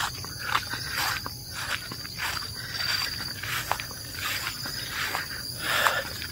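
Footsteps walking on a wet, muddy dirt path, about two steps a second, over a steady high-pitched drone of insects.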